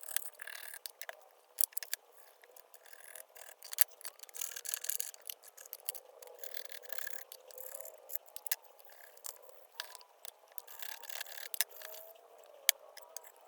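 Scattered sharp clicks and taps with stretches of scraping and rubbing, the sound of small hard parts being handled and worked on by hand.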